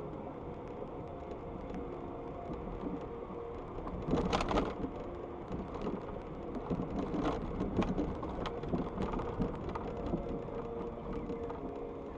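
Steady road and engine rumble inside a moving car's cabin, with a brief louder noisy burst about four seconds in.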